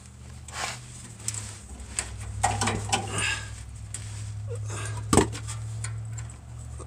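Small metallic clicks and scrapes as a fuel-line disconnect tool is pushed and jockeyed in a fuel filter's quick-connect fitting by hand, with one sharp knock about five seconds in. A steady low hum runs underneath.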